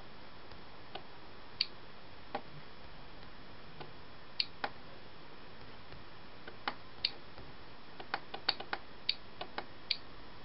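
Computer mouse clicking, sharp single clicks at uneven intervals, bunched more closely in the last couple of seconds, over a steady background hiss.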